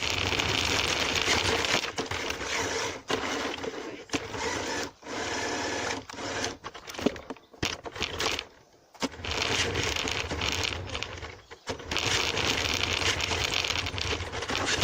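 Remote-control toy Lamborghini Reventon running, its electric motor whirring and wheels rolling over the ground, in several stretches of a second or more that stop and start again.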